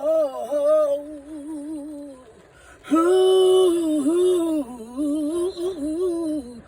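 A man singing a wordless gospel melisma on 'oh' with vibrato: one phrase, a short pause about two seconds in, then a louder, longer held phrase that bends up and down.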